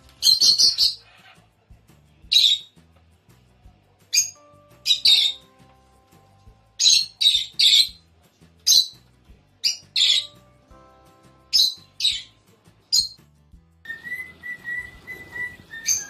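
Rosy-faced lovebirds giving loud, shrill chirping calls, singly and in quick runs of two or three, about fifteen in all. Near the end a steady wavering whistle comes in.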